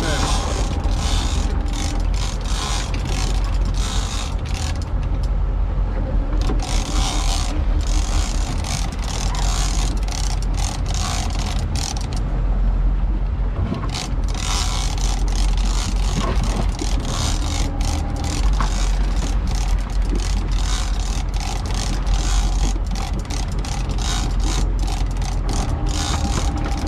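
Big-game lever-drag fishing reel cranked in on a hooked fish, giving a dense irregular run of ratchety clicks and gear rattles, over the steady low rumble of the boat's engine.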